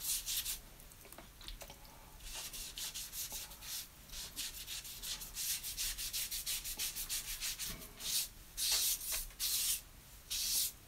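Damp sponge rubbed across watercolour paper in a run of short, hissy strokes, wetting the paper ahead of a wet-in-wet wash; the strokes get louder near the end.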